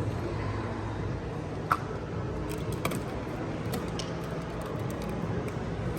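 Light handling of small plastic toy pieces and packaging: a few scattered clicks and taps over a steady low background hum.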